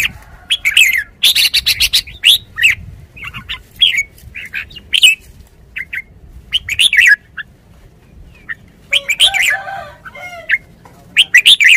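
Red-whiskered bulbul calling: short, bright chirps and brief song phrases repeated with short pauses, with busier, harsher bursts about a second in and again near the end.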